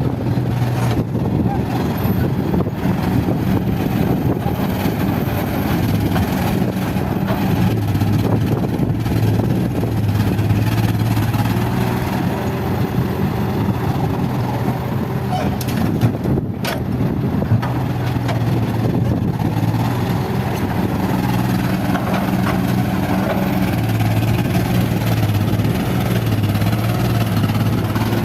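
Heavy diesel engine of earthmoving equipment running steadily, its note strengthening and easing every few seconds as it works under changing load, with a brief sharp sound about sixteen seconds in.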